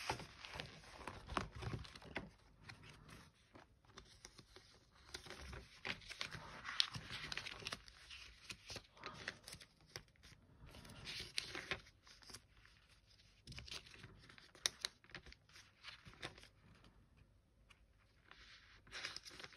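Thin paper planner pages being flipped and rustled by hand, with irregular soft rustles and small clicks of paper and cover handling.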